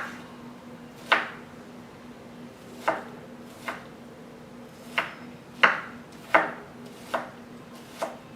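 A Vie Belles 5.5-inch utility knife with a VG10 Damascus blade slicing through a shallot, its edge knocking on the cutting board about nine times at an uneven pace.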